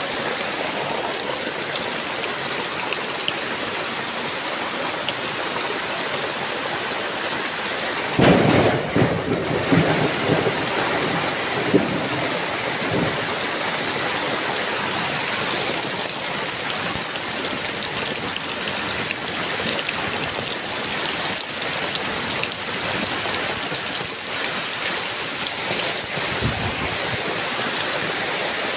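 Heavy rain falling steadily, with a sudden thunderclap about eight seconds in that rumbles on for a few seconds. A fainter low rumble of thunder comes near the end.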